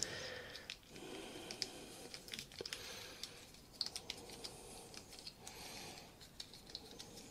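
Faint small clicks and light scratching of hand work on a tyre valve: the valve core being unscrewed from a new TPMS sensor's valve stem with a small core tool.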